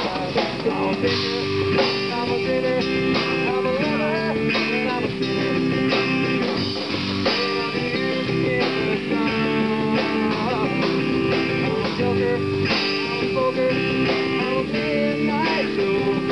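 Live rock band playing an instrumental passage: electric guitars with bending notes over bass and a drum kit, blues-rock in feel.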